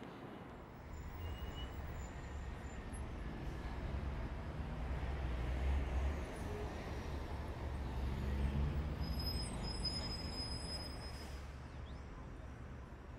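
Low rumble of city traffic, swelling twice as heavier vehicles pass.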